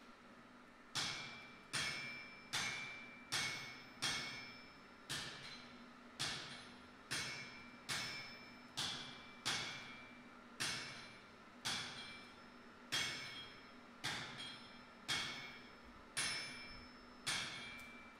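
Blacksmith's hand hammer striking a glowing-hot metal bar on an anvil in a steady rhythm of about four blows every three seconds, each blow ringing briefly; the hammering starts about a second in. A steady low hum runs underneath.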